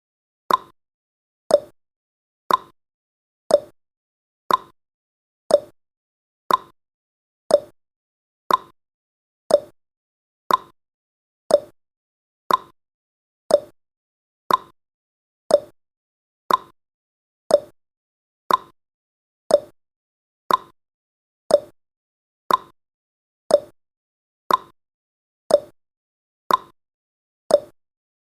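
Clock-tick sound effect of a countdown timer: short, sharp ticks at a steady rate of about one per second.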